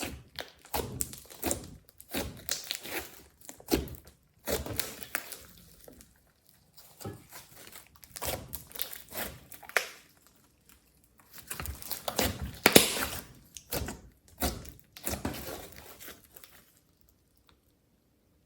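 Glossy slime mixed with clay, glitter and beads being squished, stretched and pressed by hand: irregular bursts of wet crackling, clicking and popping, with short pauses between handfuls, quiet near the end.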